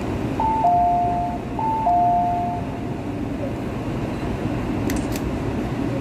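A two-note electronic chime, high then low, sounds twice in quick succession over the steady low hum of a train stopped in a station.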